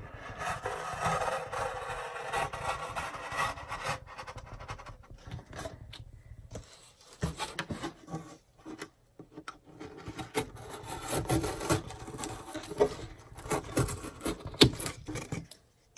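Sharp blade drawn through foam board: a scraping, rasping cut for the first few seconds, then scattered crackles and clicks as the scored board is bent and snapped along the cut line.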